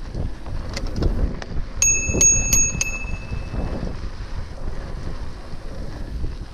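A bicycle bell rung four quick times about two seconds in, its ring hanging on briefly after the last strike. Underneath is the steady rumble of wind on the microphone and the rattle of riding.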